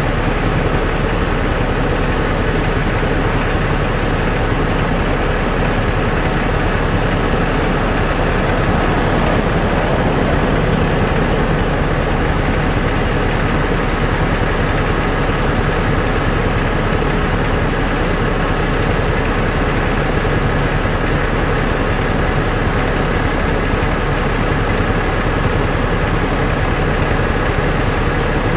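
A steady engine drone with an even hum.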